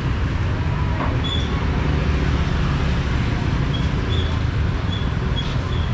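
Steady low rumble of street traffic, with a few short, faint high chirps now and then.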